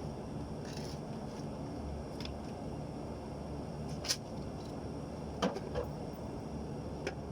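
A steady low hum with a few sharp clicks and knocks: one about four seconds in, two more close together a second or so later, and a last one near the end.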